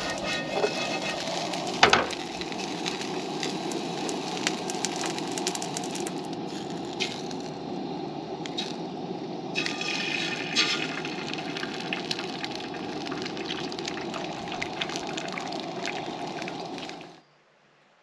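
Diced potatoes sizzling and crackling in a nonstick frying pan over a propane camp stove, with the burner's steady roar underneath. A single sharp knock sounds about two seconds in, and the sound cuts off suddenly near the end.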